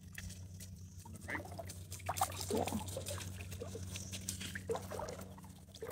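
Wolfdog wading through shallow river water and stepping out onto the bank: light splashing and scattered steps, over a steady low hum.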